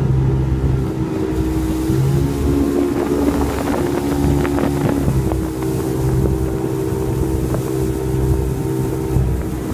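Motorboat engine running under way, its pitch shifting up and down a few times as the speed changes, with wind buffeting the microphone.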